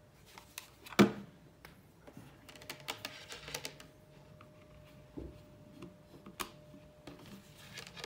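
Handling noises of a Nokia 918 mobile phone's plastic body on a wooden table: one sharp knock about a second in, then scattered clicks and taps as the phone and a charger plug are handled.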